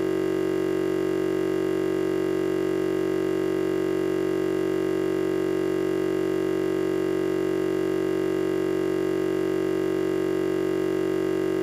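Steady, unchanging electronic buzz of several tones held at once, with a low hum the strongest. It is a fault in the recording, not a sound from the room.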